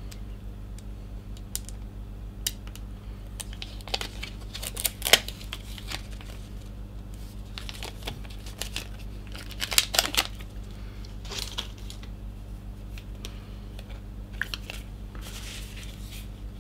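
Handling noises of a small card and paper: scattered light clicks and short rustling, crinkling bursts, the loudest about four to five seconds in and again around ten seconds, over a steady low hum.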